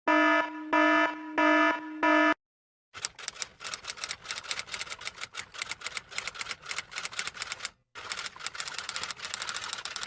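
Four short electronic beeps, then about seven seconds of rapid clicking like fast typing, broken by a brief pause near the end.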